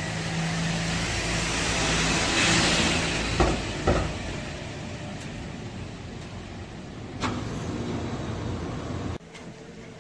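A car passing close by on a street, its engine and tyre noise swelling to a peak a couple of seconds in and then fading. Two sharp knocks follow shortly after the peak, and the sound cuts off abruptly near the end.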